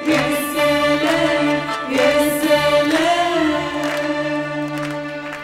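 A woman singing an Arabic song into a handheld microphone over sustained instrumental accompaniment, her voice bending and wavering on held notes.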